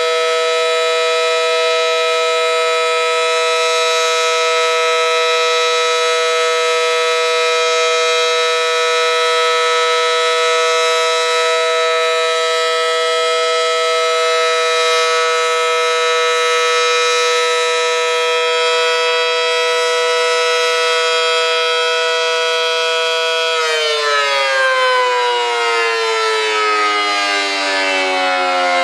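Federal Sign & Signal Model 5T warning siren with a large 9/12 port chopper, sounding a steady two-note chord for the alert signal. About 23 seconds in, the pitch begins to fall as the siren winds down.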